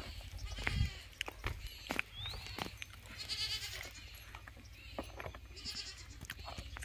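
Goats bleating, two calls about three seconds in and again near the end, among scattered light knocks and scuffs.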